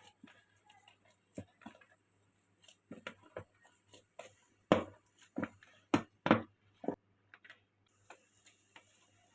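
Irregular clicks and knocks, the louder ones bunched together about halfway through, over a faint steady hum.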